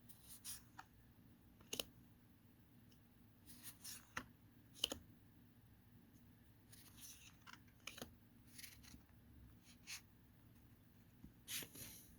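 Magic: The Gathering trading cards being handled: quiet papery swishes and sharp little snaps at irregular intervals as cards slide against each other and are flicked over.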